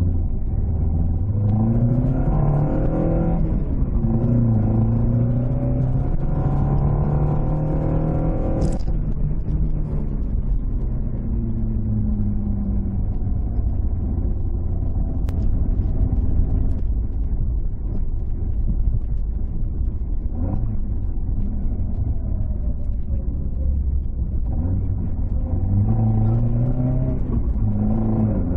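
AE86's 5-valve 4A-G engine breathing through 50 mm Weber carburettors, accelerating hard with a gear change about three seconds in. It eases off and cruises after about nine seconds, then accelerates again near the end.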